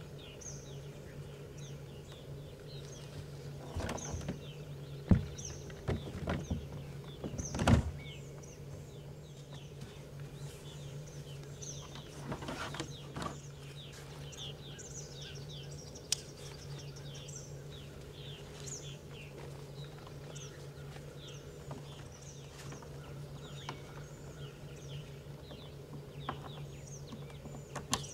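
Songbirds chirping and singing over a steady low hum, with a few sharp knocks and clunks about four to eight seconds in and again around twelve seconds in, from gear being fitted into a Hobie Sport kayak.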